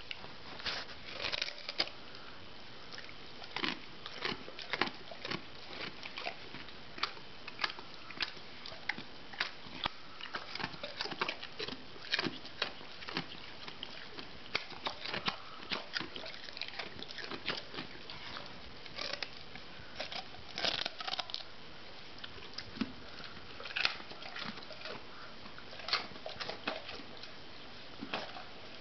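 A mastiff chewing and crunching a raw carrot: irregular crunches and clicks of teeth on the carrot, a few a second, with short pauses.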